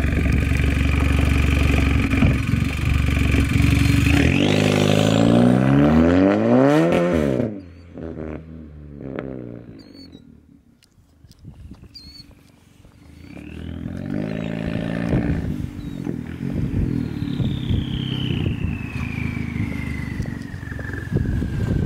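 Straight-piped 2015 Volkswagen Jetta's 1.8-litre turbocharged four-cylinder (1.8T, resonator and muffler deleted), loud and low at first, then revving up with rising pitch as the car launches and pulls away. After a quieter stretch in the middle it accelerates again with rising revs and runs on steadily as it drives past close by.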